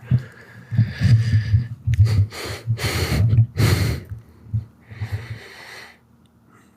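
A person's noisy breaths and snorts, several short ones in a row, dying away near the end.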